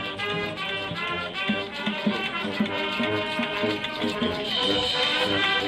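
Marching band playing a Spanish-flavoured show tune: the brass section carries the melody over steady drum beats, swelling louder about four and a half seconds in.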